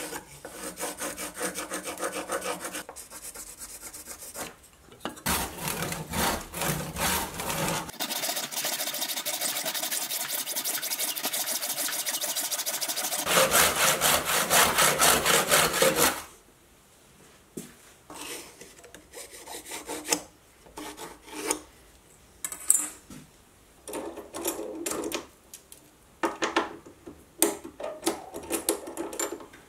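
Hand saw cutting through a block of hardwood in quick, steady back-and-forth strokes, starting about five seconds in and stopping around the middle. Before it, light pencil scratching along a steel rule; after it, sparse light clicks and taps of metal parts at a lathe chuck.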